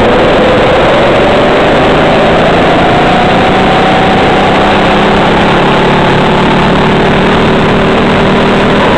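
Birel racing kart's engine running hard on track, its pitch rising slowly as the kart accelerates, under a loud rushing noise on the onboard microphone.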